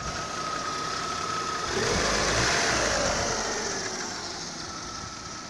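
Lada Priora's 16-valve four-cylinder engine idling smoothly, described as whispering, freshly rebuilt with new piston rings, valve stem seals and hydraulic lifters to cure heavy oil burning. A steady high whine stops about a second and a half in, and a louder rush of noise swells about two seconds in, then fades over the next two seconds.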